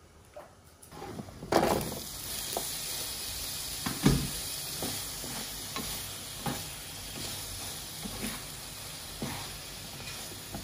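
Potato chunks sizzling in caramelized palm sugar in a nonstick frying pan, stirred with a slotted spatula that scrapes and knocks against the pan about once a second. The sizzle starts loudly about a second and a half in.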